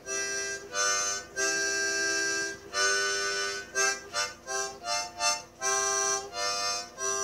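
Background music: an instrument playing a tune in chords, with quick short notes alternating with longer held ones.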